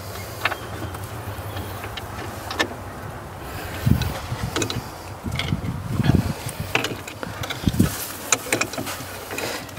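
Hand work on a battery cable terminal: scattered short metal clicks and taps from the clamp and an adjustable wrench, with a few low thumps from about four seconds in.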